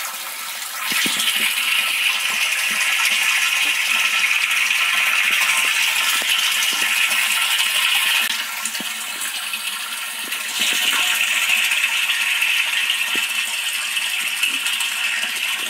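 Water from a pump's delivery hose pouring and splashing into a partly filled water tank, a steady rushing splash. It dips for about two seconds around the middle, then comes back as loud. The sound is the tank filling while the pump motor runs.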